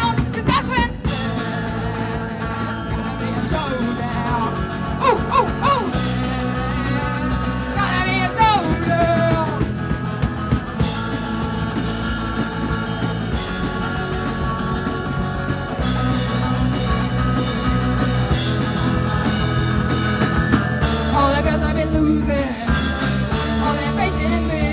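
Live rock band playing: electric guitars, bass guitar and drum kit, amplified, with a lead melody line that bends in pitch near the start and again around five to nine seconds in.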